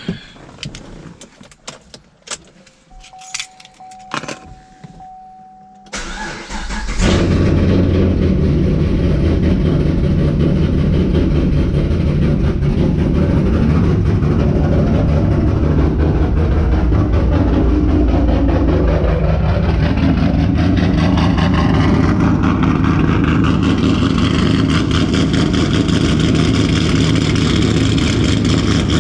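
A few clicks and a short steady tone, then the cammed Camaro SS's V8, fitted with a GPI aftermarket camshaft, cranks and fires about six seconds in and settles into a loud, steady idle.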